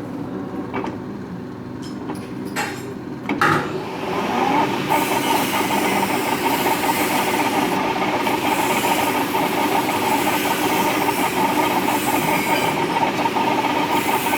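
Lathe running with a steady hum. A knock comes about three and a half seconds in, and from then on the sound is louder and rougher.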